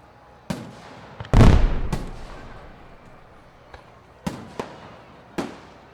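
Fireworks shells bursting overhead: about six separate sharp bangs, the loudest about a second and a half in with a long rolling echo, then a quieter gap and a few more bangs near the end.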